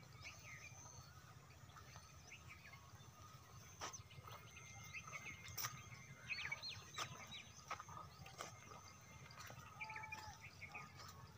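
Faint birdsong: small birds chirping in short repeated calls, with a few soft clicks and a low steady rumble underneath.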